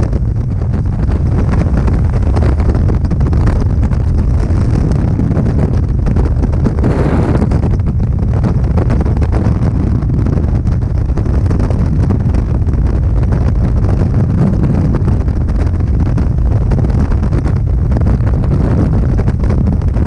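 Freefall wind rushing and buffeting the camera microphone, loud and steady, with a brief louder gust about seven seconds in.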